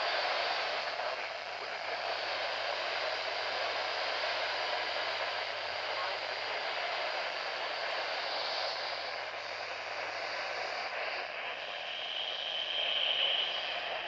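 Steady static hiss from the speaker of a Midland handheld NOAA weather radio.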